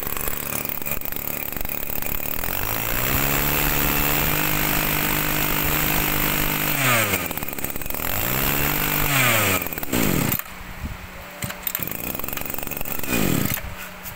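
Ryobi brush cutter's small two-stroke Mitsubishi engine running: revved high, its pitch dropped and raised again a few times, then settling to a quieter idle about ten seconds in, with one more short rev near the end.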